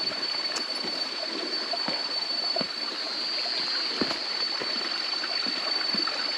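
Small jungle stream trickling and gurgling over rocks, with a thin steady high-pitched tone above it that swells briefly about three seconds in.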